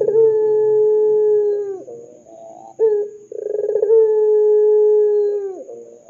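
Ringneck (Barbary) dove cooing: two long drawn-out coos, each dropping in pitch at its end. The second follows a short note and a rolling burr.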